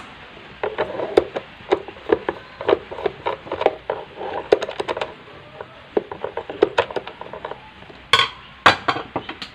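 A screwdriver clicking and scraping against the plastic housing of a blender base as the last screw is undone, with many small knocks from the housing being handled and two louder knocks near the end.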